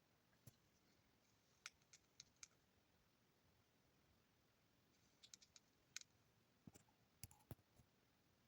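Near silence broken by faint, scattered clicks and taps, some single and some in quick little clusters.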